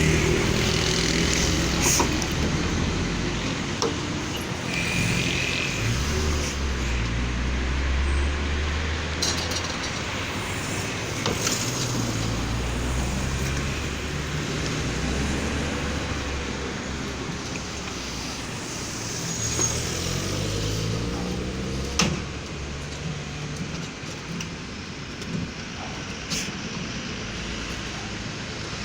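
A motor vehicle's engine running and changing speed over and over, its pitch rising and falling, with a few sharp knocks and brief hisses.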